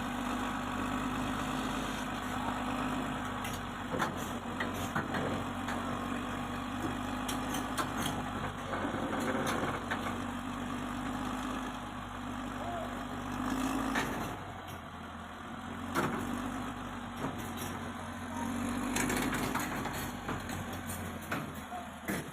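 Heavy diesel engine running, its note swelling and easing several times, with scattered short knocks. The deep rumble drops away about two-thirds of the way through.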